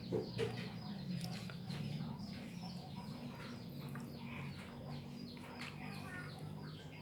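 Faint chicken clucking over a steady low hum, with light scratchy handling noises.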